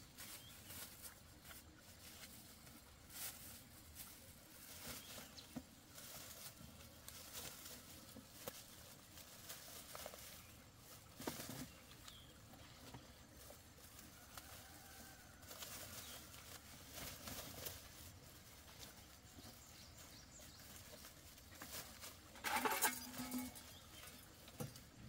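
Plastic bags rustling and crinkling in the hands as luffa gourds are packed into them, with soft scattered handling clicks. A brief louder sound stands out near the end.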